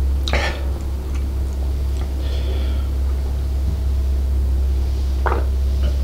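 A steady low hum throughout, with a short sound just after the start. About five seconds in comes a short gulp as a man swallows beer drunk from a glass mug.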